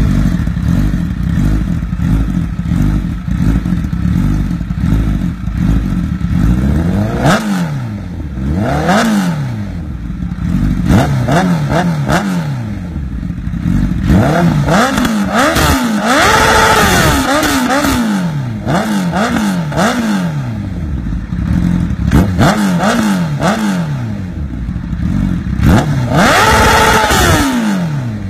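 Honda CBR1000RR's inline-four engine through an Akrapovic shorty exhaust: it idles for several seconds, then is revved over and over, the pitch rising and falling with each blip. The revs are held high twice for about a second, near the middle and near the end.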